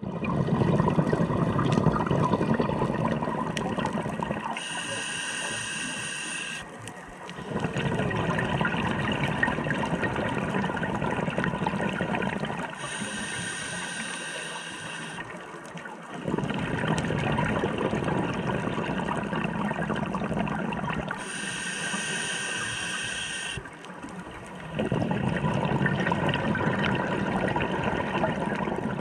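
Scuba diver breathing through a regulator underwater. Three short hissing inhales come about eight seconds apart, and each is followed by several seconds of exhaled air bubbling out.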